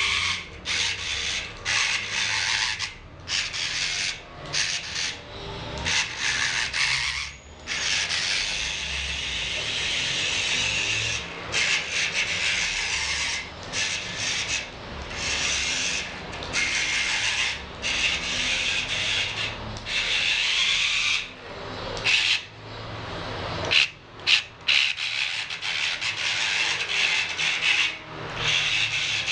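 Small DC motor and plastic gear reducer of a homemade RC car whirring with a gritty, rasping sound as the car drives. It runs in short bursts that start and stop again and again, with one longer run about eight seconds in.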